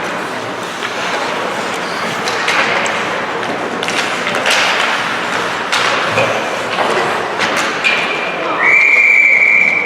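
Repeated knocks and thuds of play in a hockey rink over a crowd background. Near the end a long, steady whistle blows.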